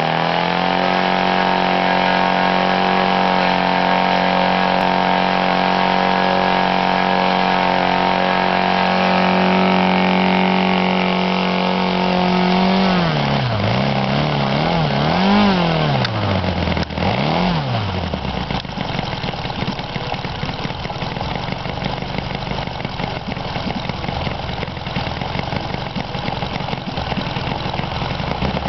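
Saito FA-300T twin-cylinder four-stroke model aircraft engine and its propeller running at a high, steady speed. About 13 seconds in it is throttled back, its pitch dipping and rising twice before it settles into a low, uneven idle.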